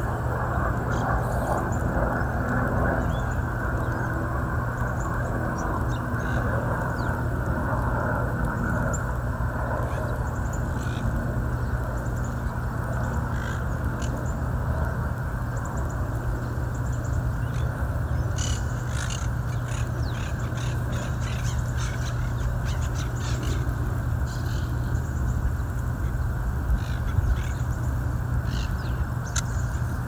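Monk parakeets giving short, harsh squawks and chatter, scattered at first and coming thick and fast in the second half, over a steady low background rumble.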